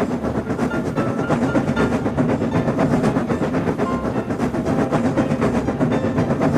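Animated train's running sound effect: a train moving along rails with a steady, rapid clatter of wheels.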